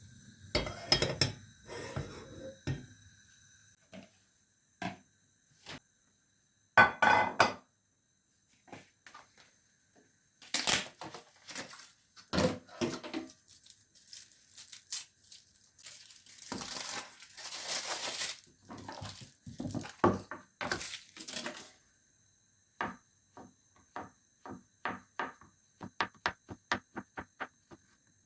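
Kitchen handling sounds: dishes and utensils clinking and being set down, with some rustling and scraping. Near the end, a regular tapping about two or three times a second.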